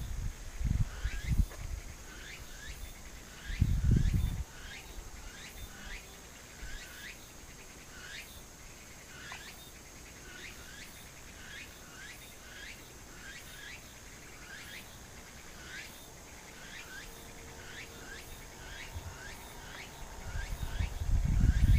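Early-autumn field insects, crickets among them, calling together: a steady high trill under a repeated short chirp that comes a little more than once a second. Low rumbles break in near the start and again near the end.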